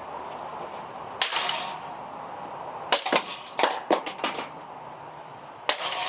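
Sharp knocks and clacks from ceiling fan parts being struck and pried apart: one about a second in, a quick cluster of several between three and four and a half seconds, and another near the end, over a steady rushing noise.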